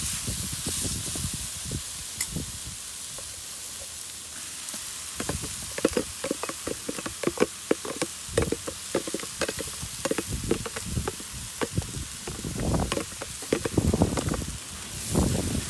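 Sliced beef, bacon, onions and peppers sizzling in a frying pan. From about a third of the way in there are frequent sharp clicks and knocks of a utensil against the pan as the food is stirred.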